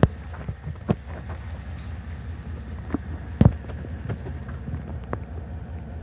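Pickup truck engine idling as a steady low rumble, with a few short sharp knocks, the loudest about three and a half seconds in.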